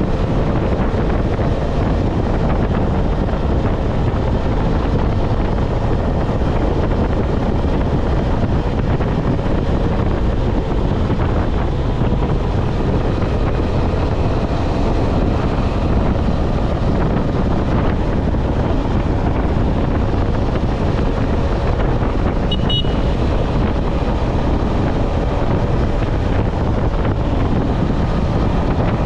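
Wind buffeting the microphone at highway speed over the steady drone of a KTM 250 Adventure's single-cylinder engine at cruising revs. A short high beep sounds about three-quarters of the way through.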